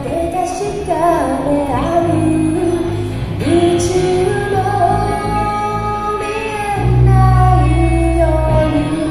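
A live band playing a song with a woman singing the melody over bass and accompaniment; the bass swells louder about seven seconds in.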